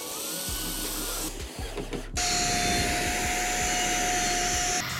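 Corded electric drill driving a screw into a pine frame, its motor whining up slightly in pitch; about two seconds in it gives way to a louder, steady high whine from a plunge router cutting along the edge of a pine board.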